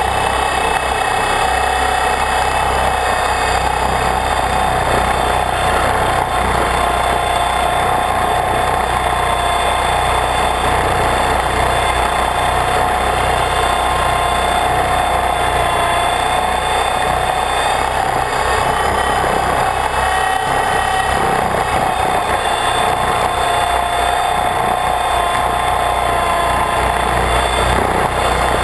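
RC helicopter in flight, its motor and rotors heard up close from a camera mounted on the aircraft: a steady high whine whose pitch wavers slightly as the throttle changes.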